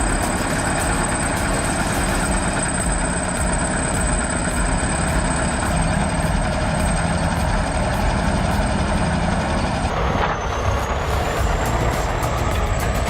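Heavy diesel machinery running steadily, with the sound changing abruptly about ten seconds in.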